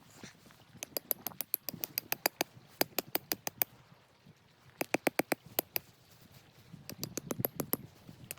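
A small animal's rapid chattering call: three bouts of sharp clicking notes, about seven or eight a second.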